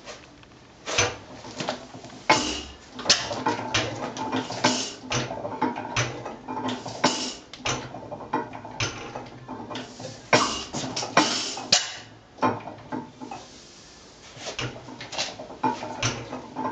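Irregular metallic clicks and clanks from the mechanism of an 1898 Deutz petroleum stationary engine, coming at uneven intervals of about half a second or less.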